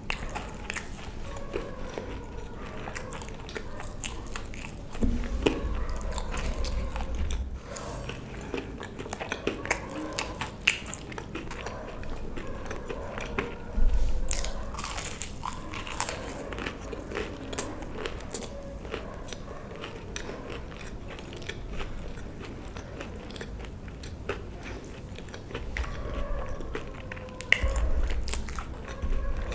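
Close-miked eating: a person biting and chewing food, with many sharp mouth clicks and crunches. There are low thuds about five seconds in, near the middle and near the end.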